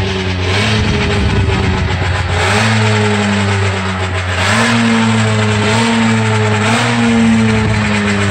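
An engine running steadily. Its pitch drops a little about two and a half seconds in, then rises again about halfway through and creeps up in small steps.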